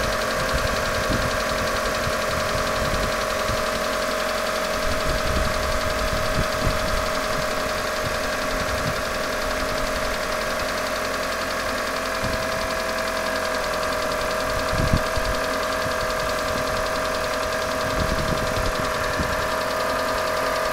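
Car engine running steadily with an intermittent knock: scattered low knocks come at uneven intervals, the loudest about fifteen seconds in. The owner says the knock does not sound like hydraulic lifters and comes at uneven intervals even when the engine is warm.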